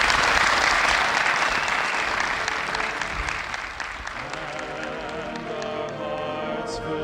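Large stadium crowd applauding and cheering, loudest at the start and dying down after about four seconds, as music with brass comes in and carries on.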